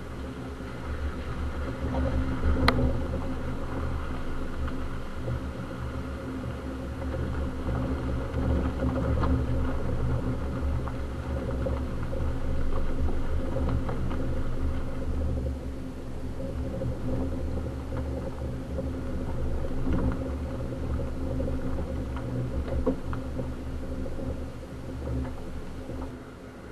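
A 2020 Subaru Crosstrek on all-terrain tyres driving slowly over a rutted dirt trail. Tyres, suspension and engine make a steady low rumble, broken by occasional knocks from bumps and stones, the sharpest about three seconds in.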